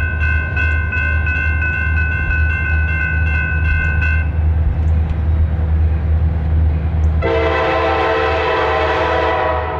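Grade-crossing bell ringing at about three strikes a second as the gate arm comes down, stopping about four seconds in. Near the end an approaching diesel locomotive sounds one long blast of its multi-chime air horn, about two and a half seconds long, over a low steady diesel engine rumble.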